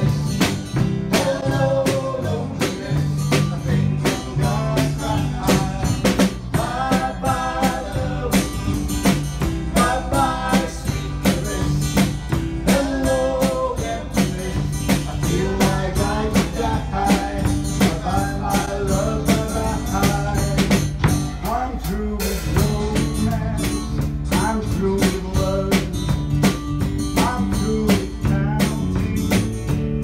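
Music: a song with a lead voice singing over a steady drum beat and bass line.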